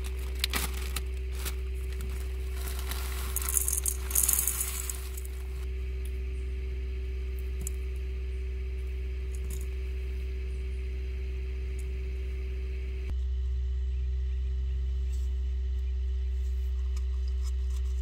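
Zip-top plastic bag of granola being handled: a few light clicks, then about three seconds in a couple of seconds of crinkling plastic and loose granola rattling. A steady low hum runs underneath.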